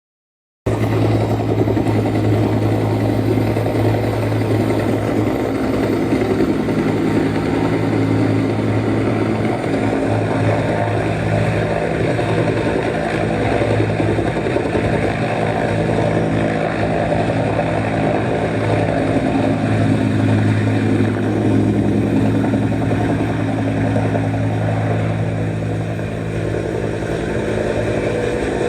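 A loud, steady engine sound with a deep hum that holds an even pitch throughout. It cuts in abruptly just under a second in.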